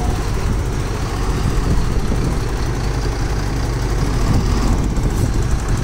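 Flatbed trailer truck's diesel engine running steadily as the truck moves slowly past, a low even rumble.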